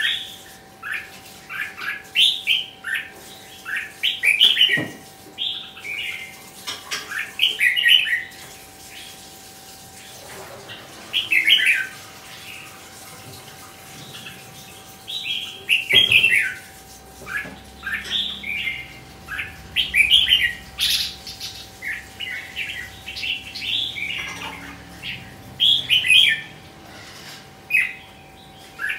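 Red-whiskered bulbul singing in bouts of short, quick whistled phrases, broken by a few pauses of several seconds, over a faint steady hum.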